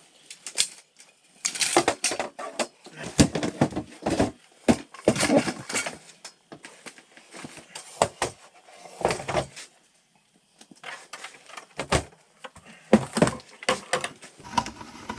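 Irregular knocks and clatter, in bunches, with a short lull about two-thirds of the way through.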